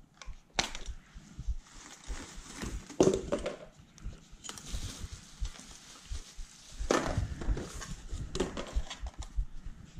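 Bubble wrap and plastic packaging crinkling and rustling as it is handled and cut away with snips, with several sharp snaps and clicks spread through.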